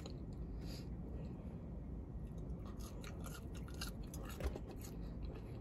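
A person chewing fast food, with faint mouth sounds and a scatter of small clicks, and one soft knock about four and a half seconds in.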